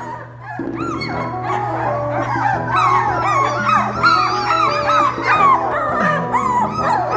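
A litter of three-week-old Labrador puppies squeaking and whimpering: many short whines that rise and fall in pitch, overlapping one after another, over background music.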